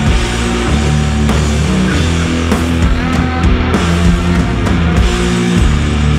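Loud hard-rock background music with electric guitar, playing steadily.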